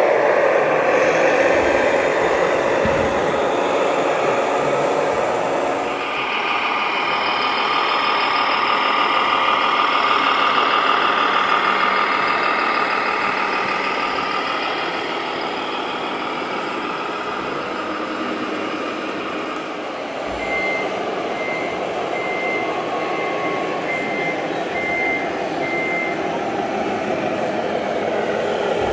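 Scale RC model trucks running, with a steady engine-like drone from their sound modules. About two-thirds of the way through, a reversing warning beeper sounds a series of short beeps.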